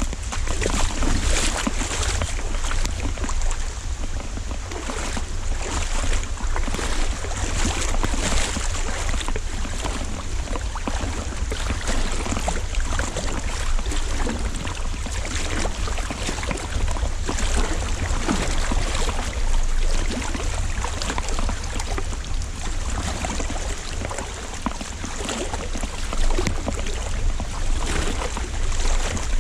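Heavy rain pelting down with water sloshing and splashing as someone wades through a river, and wind rumbling on the microphone.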